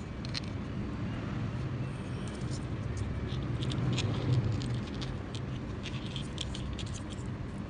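Small clicks and light scratching of fishing hooks, line and a coiled-wire spring bait holder being handled, many short ticks scattered irregularly, over a steady low hum.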